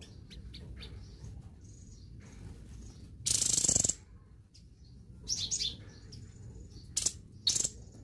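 Caged songbird calling in short, high chirps, with a loud harsh, noisy burst lasting under a second a little past three seconds in, then a brief call note and two sharp chirps near the end.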